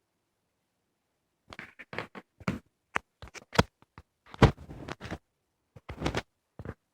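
Irregular clicks, taps and short scrapes of small hard objects being handled, starting about one and a half seconds in, with the loudest knock about four and a half seconds in.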